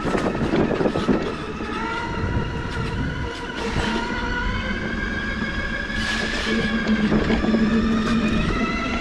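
Coyote electric ATV running along a dirt trail: its electric drive whining in a steady stack of tones that slowly rises in pitch as it gathers speed, over a rumble from the tyres, with a few knocks as it bounces over bumps.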